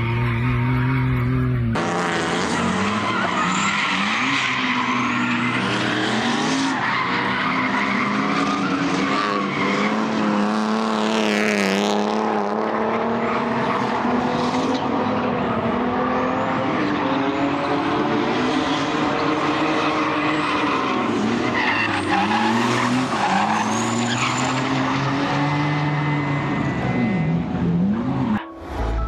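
BMW E46 drift car's engine revving up and down hard while the tyres squeal and skid through a slide.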